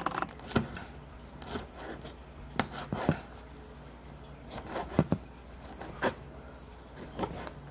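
Small knife cutting a cigarette on a plastic cutting board: a series of irregular sharp taps as the blade goes through and strikes the board.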